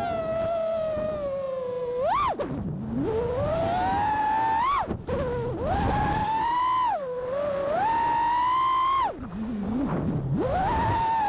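An FPV freestyle quadcopter's brushless motors (T-Motor ITS 2208, 1750 KV) whining in flight, the pitch sliding up and down with the throttle. The whine drops away low as the throttle comes off about two seconds and about nine seconds in, dips briefly around five seconds, and climbs back each time.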